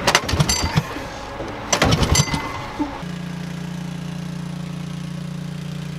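The small engine of a skid-mounted pressure washer clatters in a few bursts as it is started, then catches about three seconds in and settles into a steady run.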